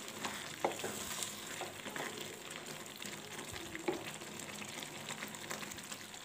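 Tapioca kurma gravy boiling in thin coconut milk in a pan, a steady bubbling sizzle with a few short clicks.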